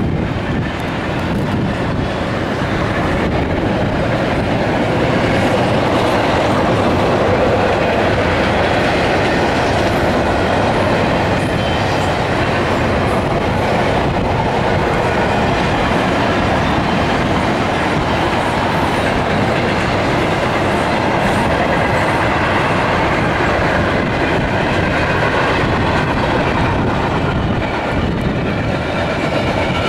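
Double-stack intermodal freight train's well cars rolling past at steady speed: the continuous noise of steel wheels on the rails, even in level throughout.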